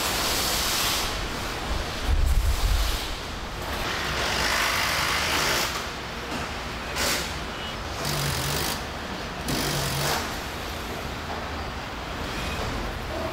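Car assembly line machinery: a steady industrial din with repeated hissing surges, a low rumble about two seconds in, and two short low hums in the second half.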